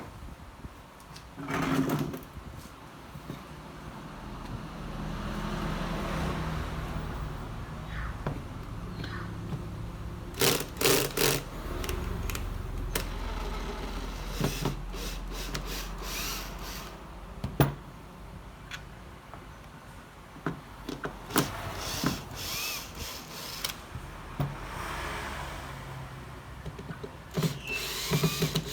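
Hand-tool and handling noise from work on a small device: scattered clicks and knocks, with stretches of a low steady hum like a small power tool running.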